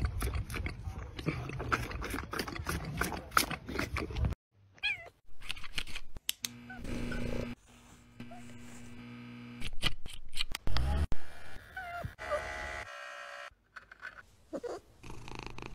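A white tiger sucking and slurping from a milk bottle in quick wet smacks, then a domestic cat meowing several times in short calls, with a steady hum behind some of them.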